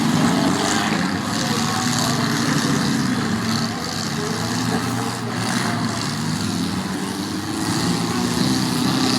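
Demolition derby car engines running.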